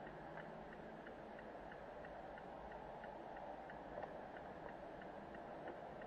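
A car's indicator clicking steadily, about three clicks a second, over a low steady hum inside the cabin.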